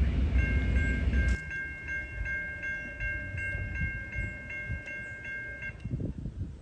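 A passing train rumbles loudly, then drops off abruptly about a second and a half in. Over it, a grade crossing's electronic warning bell dings steadily, about two to three strikes a second, and stops near the end.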